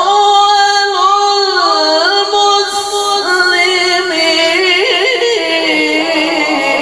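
A man's voice reciting the Quran in melodic tilawah style. He holds a long, ornamented melisma on 'awwalu' from 'wa ana awwalul muslimin', with the pitch wavering and bending through runs.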